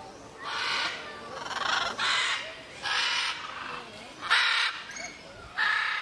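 Scarlet macaws calling: a series of about six harsh, raucous squawks, roughly one a second.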